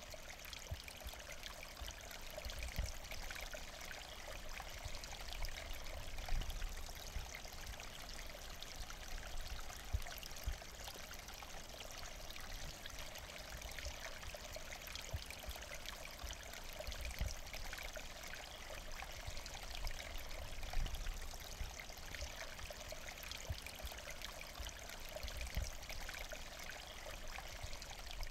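Steady rain, an even hiss of many drops with a few louder swells.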